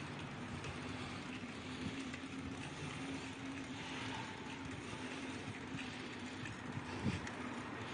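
Quiet outdoor street ambience with low rumble and handling noise from a moving phone, and a faint steady hum through the middle.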